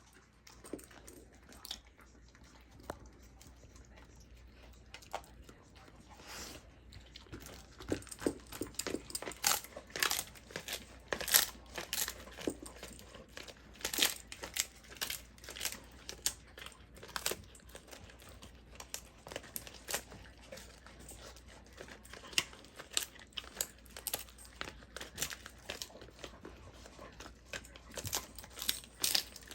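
A Belgian Malinois chewing a dried pig ear: irregular crunching, cracking and tearing bites. The bites are sparse at first and come thick and fast from about eight seconds in.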